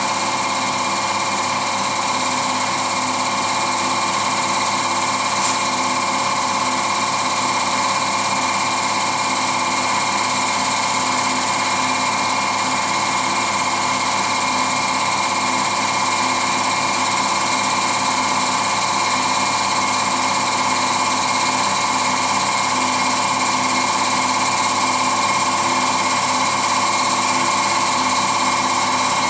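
Air compressor running steadily, supplying a paint spray gun during spraying, with a constant whine and no change in pitch.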